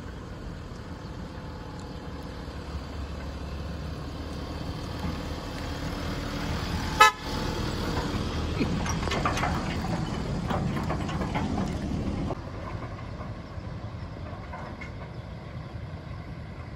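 Pickup truck engine and towed boat trailer driving past, with one short car-horn toot about seven seconds in.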